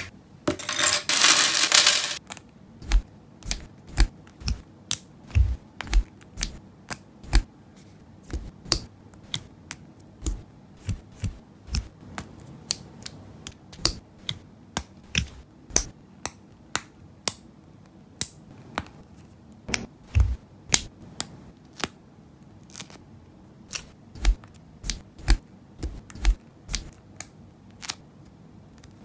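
Lego Technic plastic parts being snapped together by hand: sharp clicks at irregular intervals, roughly one or two a second, as pins, axles and gears are pushed home. A brief rustle in the first two seconds.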